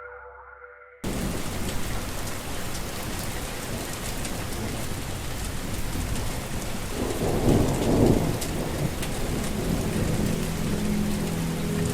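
Steady heavy rain that starts abruptly about a second in, with a roll of thunder rumbling louder partway through.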